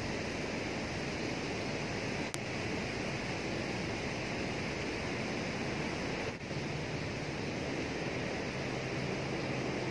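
Fast, turbulent water rushing past a sluice gate, a steady hiss, with one brief click about two seconds in.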